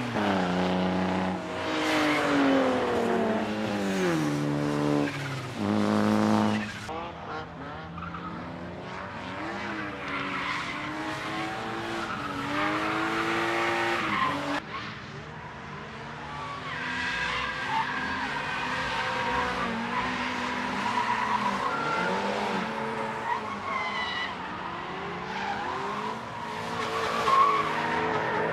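Drift cars on a race track, engines revving up and down through gear changes with tyres squealing as they slide. One car is loudest over the first seven seconds, then several engines overlap at a lower level.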